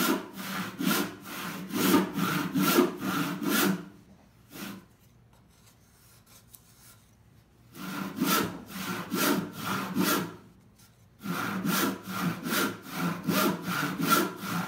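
Handsaw resawing a 2x4 lengthwise along the grain: quick, even rasping strokes, about two to three a second. The sawing stops for a few seconds midway, with just one stroke in the pause, then picks up again.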